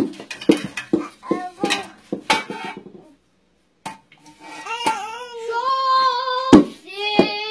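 Dishes and a glass bowl clinking and knocking against a dishwasher's wire rack, in short sharp clatters. From about halfway through, a small child sings a high wordless tune over a few more clinks.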